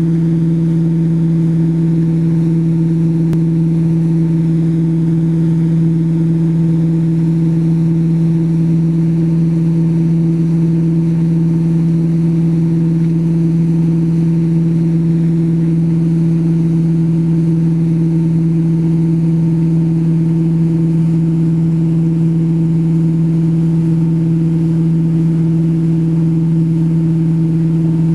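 Towboat's inboard engine running at a steady cruising speed, an even low drone that never changes pitch, with the hiss of the wake and wind over it.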